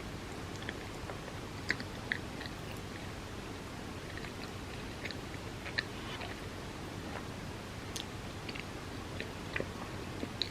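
Close-miked chewing of bagel with cream cheese: irregular soft, wet mouth clicks and smacks over a steady background hiss.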